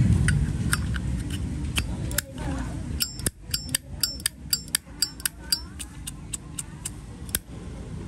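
Vintage Zippo lighter being handled: its steel lid flicked open and snapped shut again and again, a run of sharp metallic clicks, several with a bright ring, most closely spaced in the middle. A low rumble sits underneath, strongest in the first couple of seconds.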